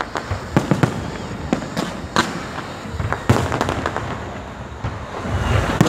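Aerial fireworks going off: an irregular string of sharp bangs and crackling pops, the loudest about half a second in, a little after two seconds, just after three seconds, and near the end.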